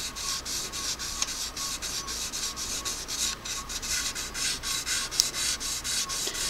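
Square carbon brush of a Singer PA-style sewing machine motor rubbed back and forth on sandpaper wrapped around a metal rod, in quick even scratching strokes about five a second. The brush's end is being sanded concave to match the curve of the commutator.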